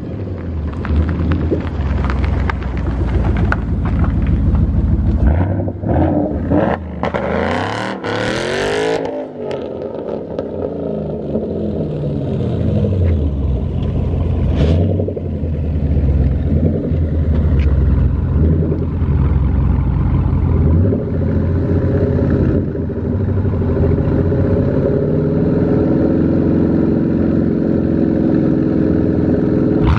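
Engines of a Dodge Charger and a Ford Mustang running at the start line of a street race, idling and revving. There is a loud surge of revving about eight to nine seconds in, and more rises in engine pitch later on.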